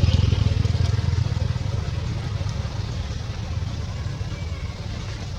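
A motor vehicle's engine running with a deep, rapidly pulsing sound, slowly growing fainter.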